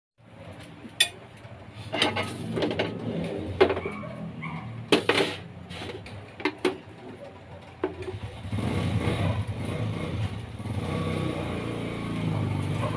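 Ceramic plates and a metal spoon clinking and knocking, a handful of sharp clinks as dishes are moved about by the stove. About eight seconds in, a steady low engine-like rumble comes up and carries on.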